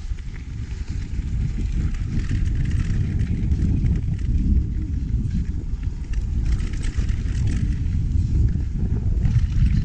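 Wind buffeting an action camera's microphone as a downhill mountain bike runs fast down a loose gravel trail, with the bike's rattle and the tyres crunching over dirt on top. It grows louder over the first second or so, then holds.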